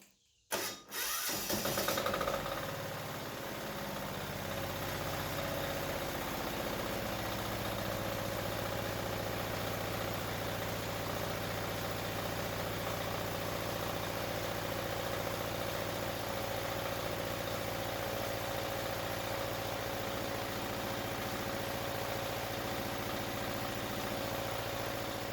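Wen D6000 diesel generator engine starting about a second in, running rough for a few seconds and then settling into steady running.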